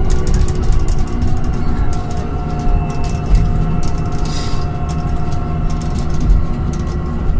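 Inside an electric bus running along an elevated guideway: a steady low rumble with a constant motor whine and light rattling clicks, and a short hiss about four seconds in.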